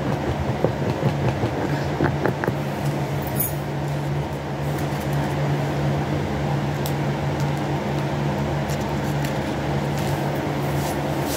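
Steady hum of an electric fan running, with a few faint clicks and taps from small handling noises.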